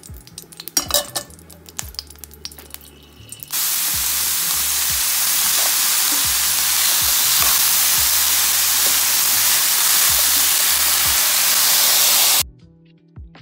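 Chopped green peppers and tomatoes sizzling loudly in hot oil in a pan. A few light clicks come first; the sizzle starts suddenly a few seconds in and cuts off suddenly near the end.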